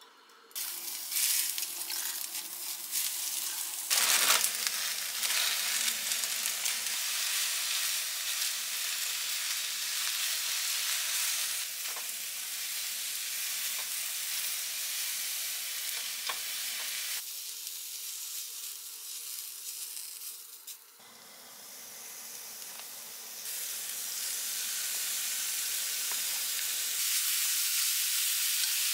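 Cabbage and bean sprouts sizzling in oil in a frying pan while being stirred with wooden chopsticks, with a sharp knock about four seconds in. The sizzle dips briefly about twenty seconds in, then resumes as raw sliced pork fries in the pan near the end.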